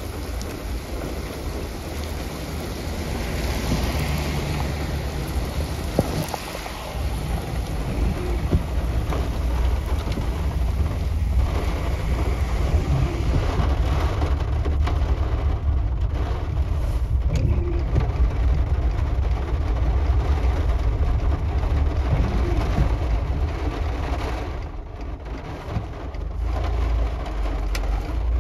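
Rain falling in a thunderstorm over a constant deep rumble, the hiss of the rain heavier a few seconds in.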